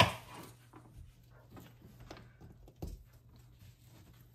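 Chef's knife slicing an onion on a plastic cutting board: a sharp knock right at the start, then light taps of the blade on the board about every half second, with one heavier thud near three seconds in.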